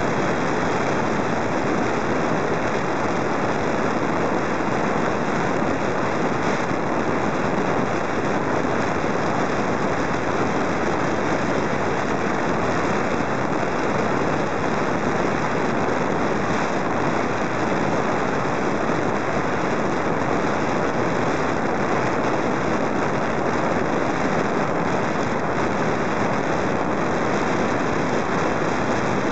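Steady, even rushing noise of airflow and propeller from a camera mounted on a radio-controlled model plane in flight, with no change in pitch.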